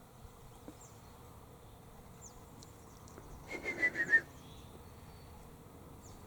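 A person whistling a short run of about five quick notes, each a little lower than the last, about three and a half seconds in, to get a superb fairy wren to call. A few faint, thin, high chirps come before it.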